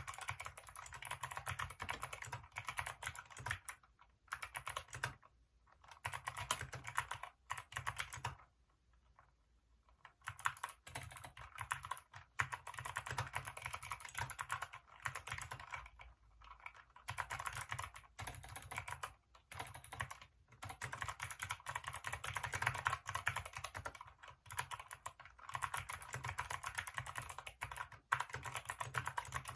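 Hacker K611 mechanical keyboard with Kailh optical switches being typed on fast, a dense clatter of keystrokes. It comes in runs broken by short pauses, with a longer pause of about a second and a half roughly a third of the way in.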